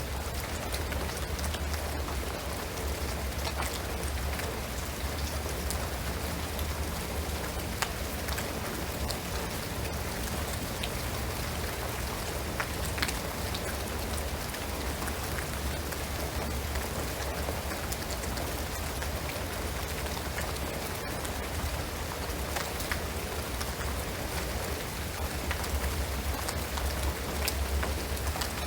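Steady rain falling on a shingled roof and pine trees: an even hiss with single drops ticking through it and a low rumble underneath.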